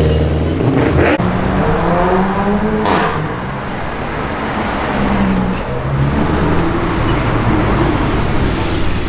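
Car engines running and revving, their pitch rising and falling as cars pull away and pass, with an abrupt change in the sound about a second in.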